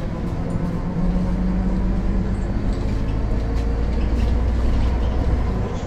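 Diesel engine of an MAN NL 273 Lion's City city bus running, with a steady low rumble that grows a little louder about a second in.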